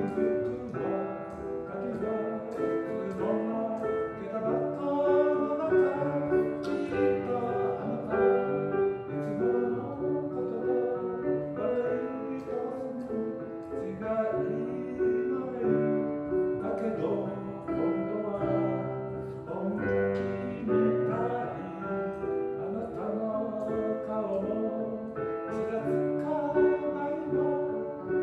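Piano music, a slow piece of held notes and changing chords.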